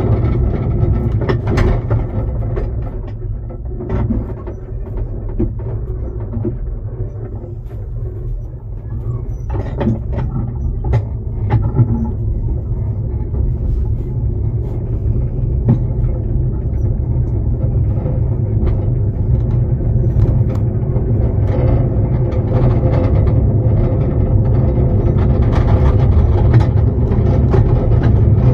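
Ride-on miniature railway train running along its track, heard from the coach just behind the locomotive: a steady low rumble with scattered clicks and knocks from the wheels and couplings. It grows louder in the second half.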